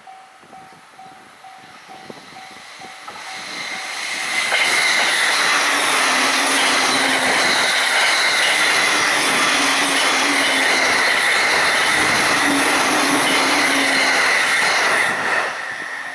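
A level-crossing bell rings in steady pulses while a train approaches and passes at high speed. The rumble of the wheels builds over a couple of seconds, holds loud with a steady high whine for about ten seconds, then drops off suddenly near the end as the train clears the crossing, leaving the bell ringing.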